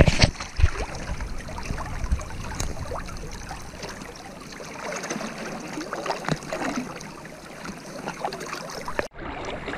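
Fast river current rushing over a stony shallow close to the microphone, heard as a steady wash. A few sharp knocks from handling the rod and the caught fish come near the start, with smaller knocks and rustles later. The sound drops out briefly about nine seconds in.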